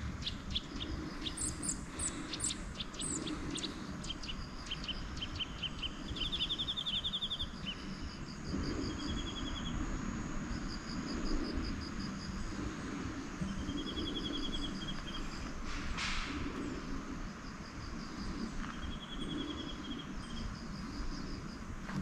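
Songbirds calling: short, rapidly pulsed trills repeated every few seconds, with higher chirps between them, over a steady low background rumble.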